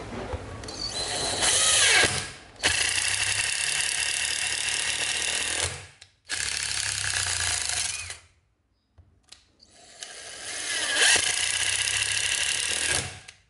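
Cordless impact driver driving screws into a block of wood in four runs of a few seconds each, winding up at the start of some runs, with short stops between screws.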